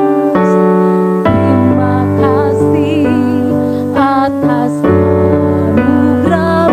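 Music for a children's praise song: a keyboard plays sustained chords that change about every second, with a wavering voice coming in at times.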